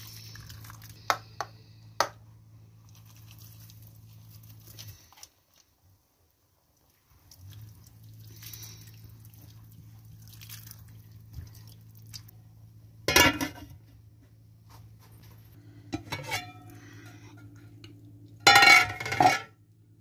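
Spatula knocking and scraping against a stainless steel cooking pot while stirring rice: a few sharp clicks in the first two seconds, then louder clattering knocks with a metallic ring, the loudest near the end. A steady low hum runs underneath.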